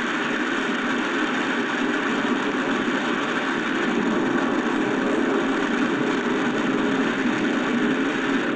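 Steady, loud rush of straight-line wind and heavy rain, as picked up by a security camera's microphone and played back; it cuts off abruptly at the end.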